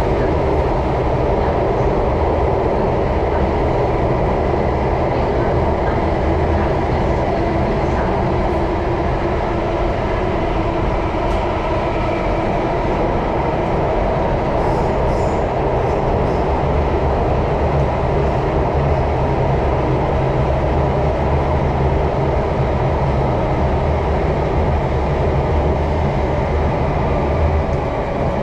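Singapore MRT train running steadily at speed: a continuous rumble of wheels on rail with faint steady tones above it.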